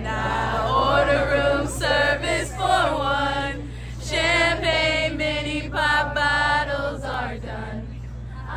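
Several voices singing a song together, a crowd of fans singing along with a man playing acoustic guitar, over a steady low hum.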